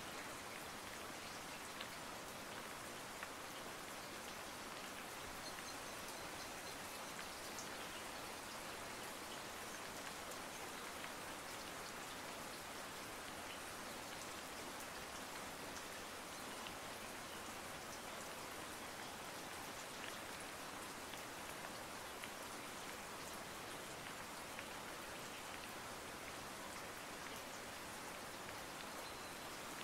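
Faint, even hiss with scattered small ticks, like steady rain falling.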